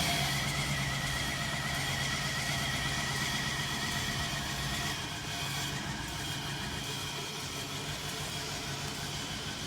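Chevy Express van engine running on brake cleaner sprayed into the intake in place of fuel, because its fuel pump has failed. It drops a little in level about five seconds in.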